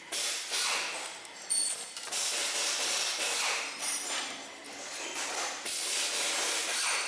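Hissing in several long surges, mixed with short mechanical clicks, during hand work on a steering column.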